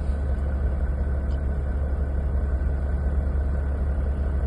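Diesel truck engine idling, a steady low rumble.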